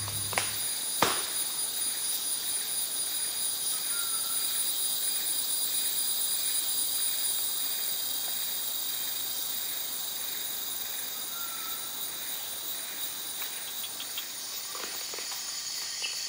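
Rainforest insect chorus: a steady, high, shrill drone of insects. Two sharp clicks come in the first second.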